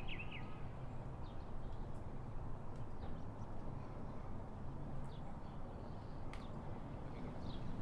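Outdoor ambience: small birds chirping now and then over a steady low rumble, with a single sharp click about six seconds in.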